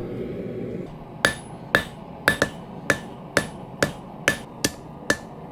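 Blacksmith's hammer striking steel on an anvil while forging tongs, about ten blows at roughly two a second starting about a second in, each with a short metallic ring. A steady rushing noise runs underneath.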